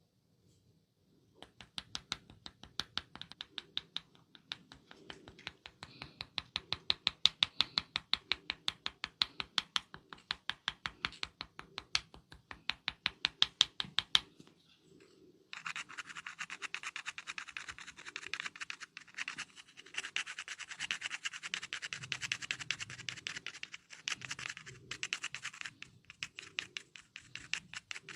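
Head massage by hand: quick sharp tapping strikes on the head, several a second, for about thirteen seconds. After a short pause comes a denser run of rapid scratching and rubbing of the hair and scalp.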